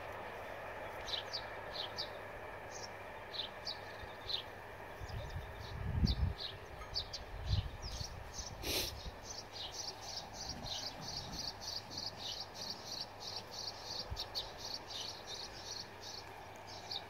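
Small birds chirping: short high chirps that become a steady run of about four a second from about ten seconds in. A few low muffled bumps come around five to eight seconds in, and a single sharp click near nine seconds.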